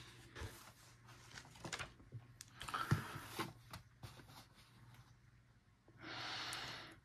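A paper coloring book being handled on a table by hands in furry costume paws: rustling and light taps, with a sharp knock about three seconds in as the book is set down and opened. Near the end comes a breathy rush lasting about a second.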